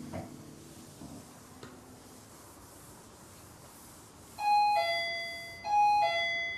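Doorbell chime ringing its two-note ding-dong, a higher note then a lower one, twice in a row starting about four and a half seconds in, the notes left ringing. A few faint clicks come before it.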